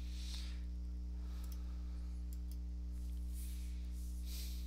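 Steady low electrical hum from the recording setup, with a few faint mouse clicks and soft rustles.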